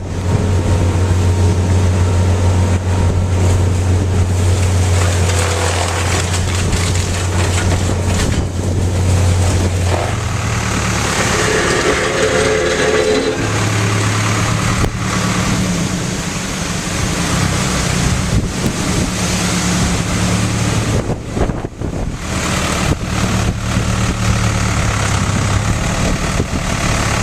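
A vehicle engine idling with a steady low hum that drops out twice for a few seconds, under loud, gusty wind noise.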